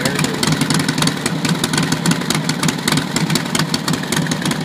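1939 Harley-Davidson Knucklehead's overhead-valve V-twin idling steadily on freshly replaced valves, a fast, even string of exhaust pulses.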